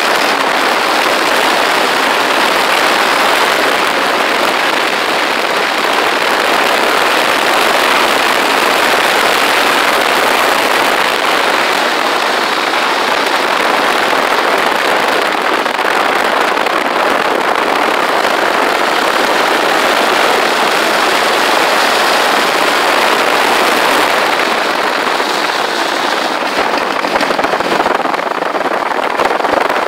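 Motorcycle riding at speed: a steady rush of wind and road noise over the handlebar-mounted microphone, easing a little near the end.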